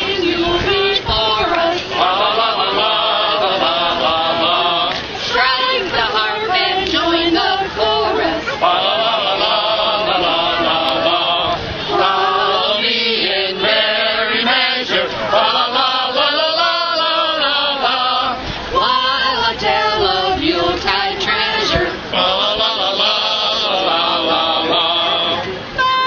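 A small choir of carolers, men's and women's voices together, singing a Christmas carol unaccompanied.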